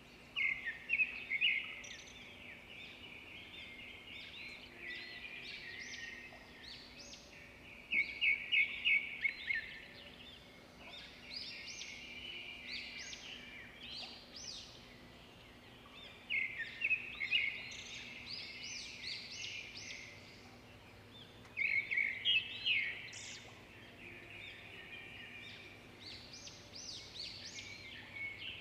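A bird singing short phrases of rapid chirping notes, repeated every several seconds, over a faint steady low hum.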